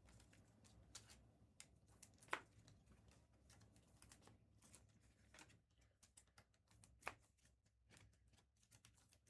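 Near silence with faint, scattered clicks and rustles of trading cards and packaging being handled, two slightly louder clicks about 2 and 7 seconds in.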